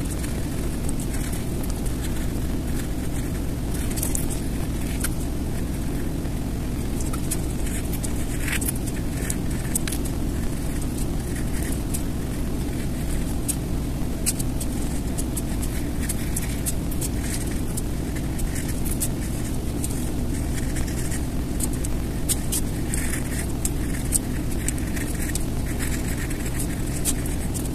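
Steady low background rumble, with scattered faint clicks and light scratching over it.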